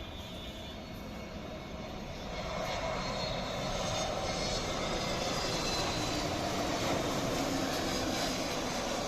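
IndiGo Airbus jet airliner on landing approach: its engine roar grows louder about two seconds in and then holds loud as the plane comes in low.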